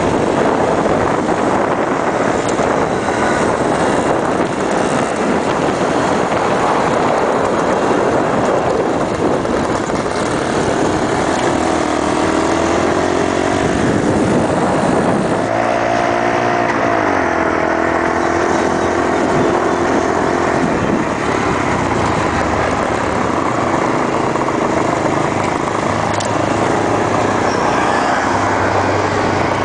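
Small motorcycle engines running while being ridden, among them a Suzuki DS80's two-stroke single. The engine pitch rises and falls with the throttle, most clearly about halfway through.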